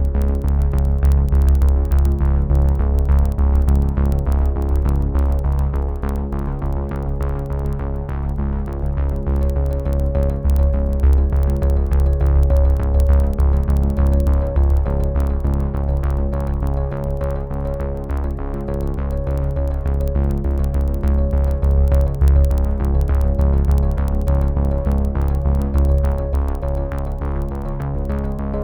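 Electronic background music with a steady drum-machine beat, synthesizer chords and a heavy bass line.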